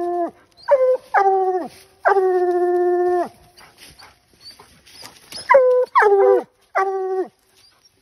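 Coonhound baying treed at the base of a tree, a tree bark that tells the hunter the quarry is up the tree. There are about seven drawn-out bawls, each dropping in pitch at the end, one held for over a second, with a pause of about two seconds in the middle.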